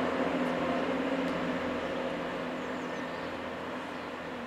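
Class 166 Turbo diesel multiple unit pulling away, its engines giving a steady low drone with a hum that fades steadily as the train moves off.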